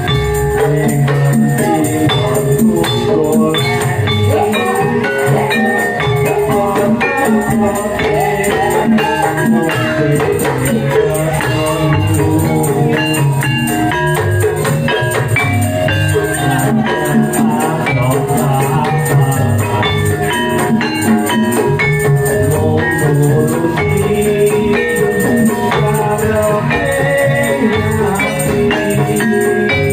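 Loud, lively music with a steady drum beat and jingling tambourine-like percussion under a melody.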